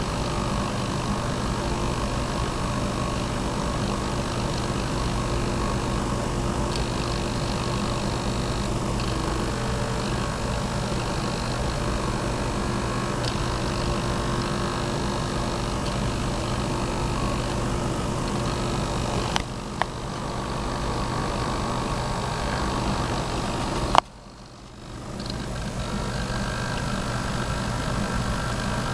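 The painting robot's small hobby servo motors buzz and whine steadily as they move the brush over the paper, under a constant hum. Two sharp clicks come about two-thirds of the way through and near the end, the second the loudest.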